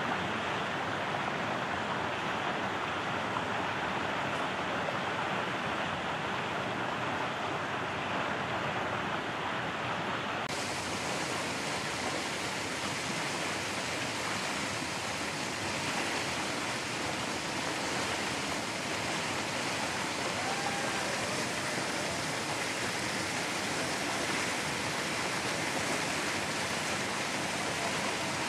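Steady rushing noise with no distinct events. About ten seconds in it abruptly turns brighter and hissier.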